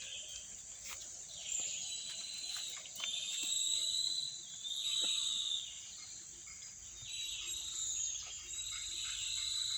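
Forest insects chirring in a steady high drone, with repeated buzzy calls of about a second each swelling and fading several times.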